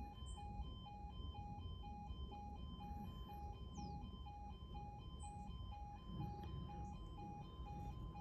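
Railway level crossing alarm sounding as the barriers come down for an approaching train: a single high electronic beep repeating steadily, between two and three beeps a second.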